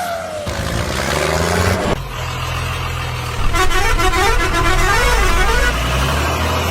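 A truck engine drones steadily. From about three and a half seconds in, a horn plays a quick tune of short up-and-down notes over it.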